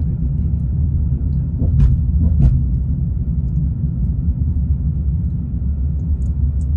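Steady low rumble of a car driving on a highway, heard from inside the moving car, with two brief knocks about two seconds in.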